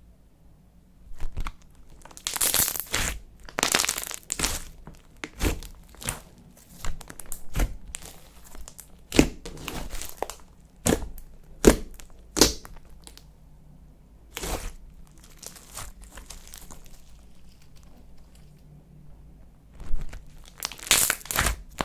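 Slime being kneaded and stretched by hand, giving irregular crackly, sticky bursts with short pauses, quieter for a few seconds before picking up again near the end.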